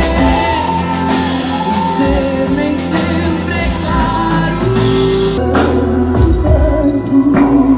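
A woman singing a song live with a small band accompanying her. The music jumps abruptly about five and a half seconds in, to another part of the song.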